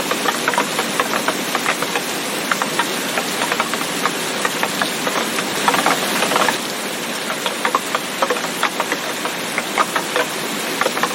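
Steady rain falling, with a dense spatter of individual drops striking close by. A brief heavier spell comes about six seconds in.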